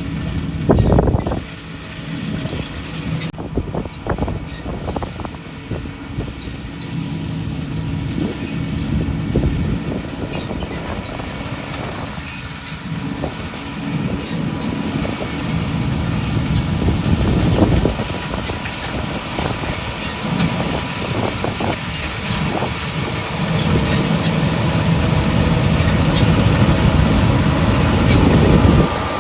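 Diesel engine of John Deere farm machinery running steadily, with a few knocks and rattles along the way.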